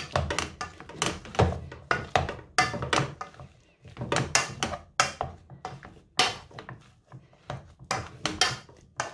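Boiled potatoes being mashed in a pot: a utensil knocks and scrapes against the pot again and again, in irregular strokes several times a second.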